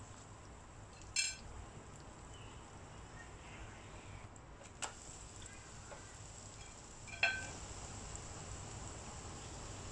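Scallion pancake frying in oil in a nonstick pan with a low, steady sizzle. Chopsticks knock sharply against the pan twice, about a second in and again near the end, each knock ringing briefly, with a fainter click in between as the pancake is turned over.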